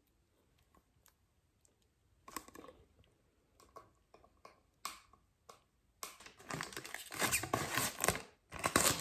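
Hands handling card packing pieces and clear plastic sheets: scattered taps and rustles, then from about six seconds in a dense, crackling rustle of plastic and card.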